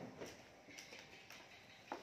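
Near silence, broken by a few faint knocks and clicks about every half second, with one sharper click just before the end.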